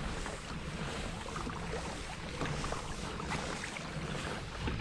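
Wind buffeting the microphone, a low rumbling noise, over open water, with faint scattered ticks of small waves lapping at a kayak's hull.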